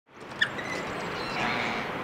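Outdoor background fading in: a steady even hiss with a short, sharp high chirp about half a second in.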